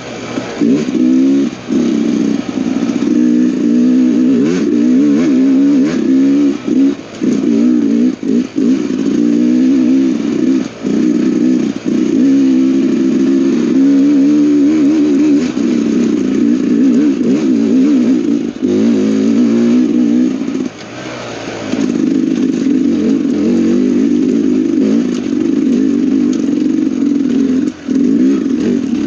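Dirt bike engine running under load on a singletrack climb, its pitch rising and falling with the throttle, with short drops as the rider backs off, the longest about three quarters of the way through.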